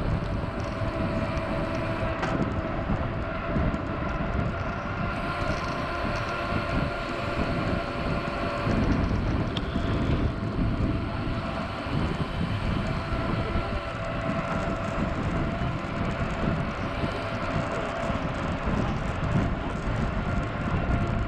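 Mountain bike riding over rough ground: a steady rumble of wind and tyres with constant fine rattling, and a faint steady hum that is strongest through the first eight seconds or so.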